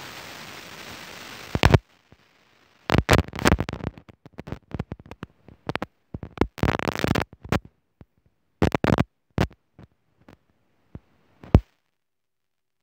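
Scratchy noise on a phone's microphone: a steady hiss that cuts off with a click after about two seconds, then irregular rough bursts broken by dead silence, and a sharp knock near the end.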